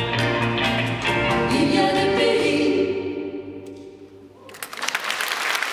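Two women's voices singing the closing phrase of a French chanson in duet over a digital piano, the last note dying away about three seconds in. Audience applause breaks out near the end.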